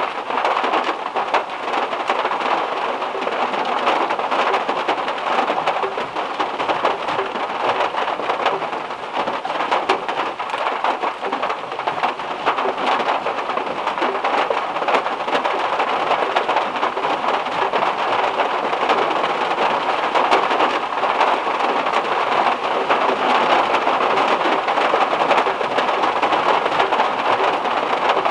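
Heavy rain falling on the metal roof of a VW Beetle, heard from inside the car: a steady, dense patter of drops.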